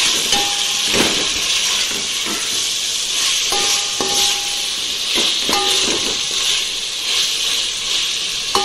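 Sliced onions and tomatoes sizzling in hot oil in an aluminium pot, stirred with a perforated metal ladle that scrapes the pot and clinks against its side several times with short ringing tones.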